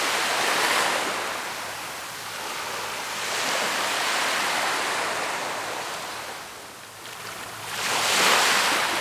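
Small waves breaking and washing up a sandy beach. The surf swells and fades three times, about every four seconds.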